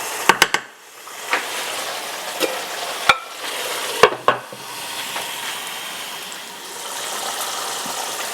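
Chicken pieces sizzling in a pot with stew masala while being stirred, with sharp clinks and scrapes of the spoon against the pan now and then.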